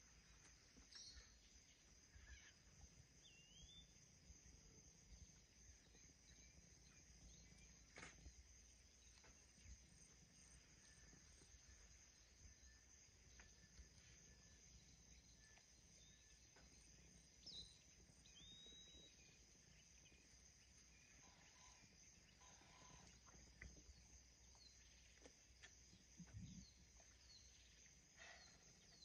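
Near silence: faint outdoor ambience with a steady high hiss and a few brief, faint bird chirps.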